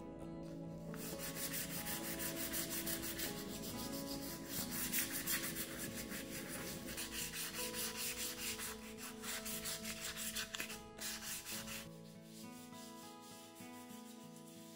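Hand sanding with a small sanding block over filler-patched, painted MDF wall slats: quick back-and-forth rubbing strokes. The sanding stops about three seconds before the end, leaving soft background music.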